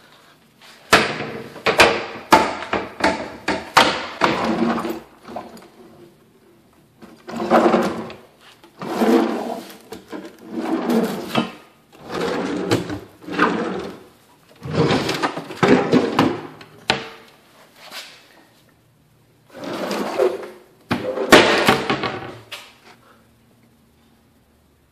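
Wooden cabinet doors and drawers being opened and closed by hand: a run of knocks and thuds in bursts, with short pauses between.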